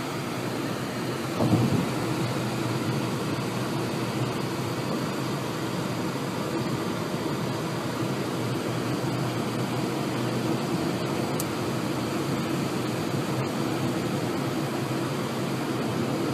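Steady road and engine rumble of a moving car, heard from inside the cabin, with a brief thump about a second and a half in.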